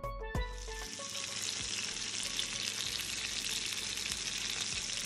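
Beef joint searing in a pan of oil and butter: a steady frying sizzle that comes in about half a second in, as a few plucked guitar notes of background music end.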